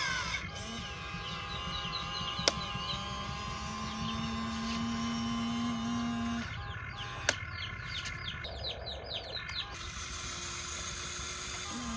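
Electric motors of a Huina remote-control excavator whining as the boom, arm and bucket move, the pitch stepping as one motion stops and another starts, with two sharp clicks. Birds chirp in the background.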